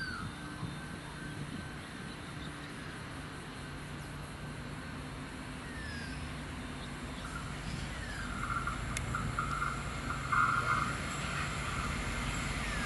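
Diesel-electric locomotives approaching at low speed, their engines a steady low hum that grows gradually louder, with a few bird chirps over it.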